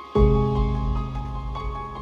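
Instrumental background music: a deep sustained chord comes in just after the start and holds under quieter higher notes.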